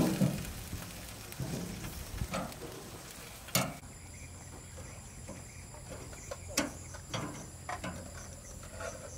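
Meat sizzling on an outdoor grill while metal tongs click against the grate a few times. About four seconds in, a steady high insect chirring comes in behind it.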